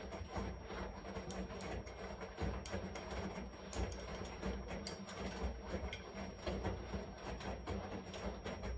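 Washing machine running: a low steady hum under a constant stream of small, irregular clicks and rattles.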